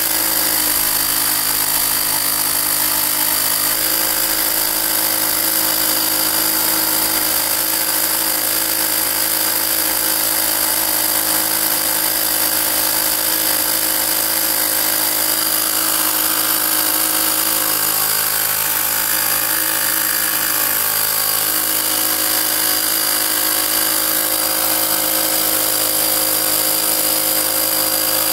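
Small 12-volt 300 psi portable air compressor running steadily, its motor-driven pump forcing air into a balloon.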